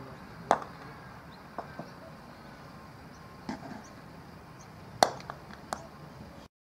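Sharp wooden knocks of croquet mallets striking balls: two loud ones, about half a second in and about five seconds in, with fainter knocks from other shots in between. The sound cuts off abruptly just before the end.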